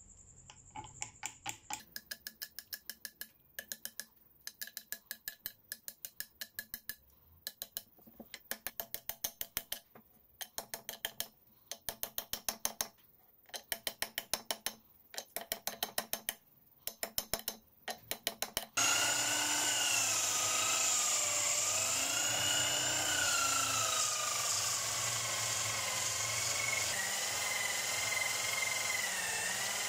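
A claw hammer taps the end of a steel tang where it sticks out of a metal ferrule, peening it over on a wooden handle, in quick runs of light metallic strikes with short pauses between them. About two-thirds of the way in, this gives way to a small electric bench motor running steadily, its whine wavering up and down as the piece is pressed against the spinning fitting.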